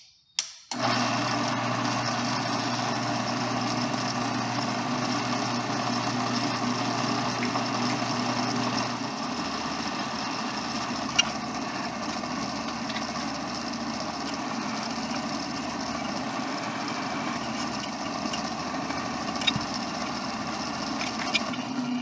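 Electric drill running steadily while drilling a hole through a mild steel pendant, starting just under a second in; its sound drops a little about nine seconds in.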